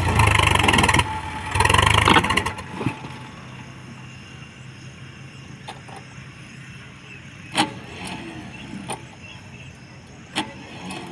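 HMT tractor's diesel engine revved hard under load as the tractor, bogged in deep mud, tries to drive out, with a short dip in the revs about a second in. About two seconds in the revs drop and the engine runs low and steady, with two sharp knocks later on.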